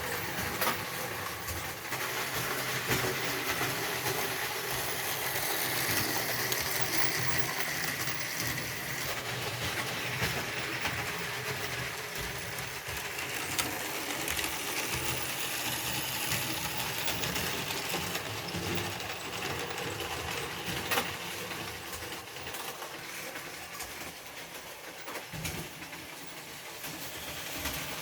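Jouef/Playcraft 231C model steam locomotive, converted to three-rail, running around its track: a steady motor whirr with the rattle of wheels on rail. It drops away for a few seconds near the end, then comes up louder again.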